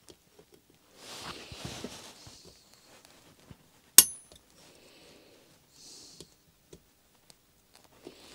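Steel parts and hand tools being handled while working at a tight circlip on a lathe drawbar's thrust-bearing unit: scuffing and light clicks, and one sharp metallic clink with a short ring about halfway through.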